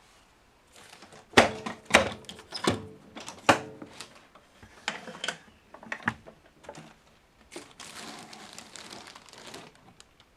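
Handling noises with no motor running: a run of sharp plastic clicks and knocks, loudest between about one and a half and three and a half seconds in, then lighter clicks, and a stretch of crinkling rustle near the end.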